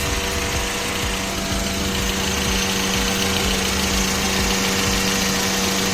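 VAZ-2109's four-cylinder petrol engine idling steadily under the open bonnet, a constant hum with a pulsing low rumble.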